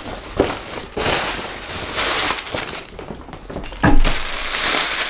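Tissue paper rustling and crinkling as it is pulled out of a gift bag, with a sharp louder crackle a little before four seconds in.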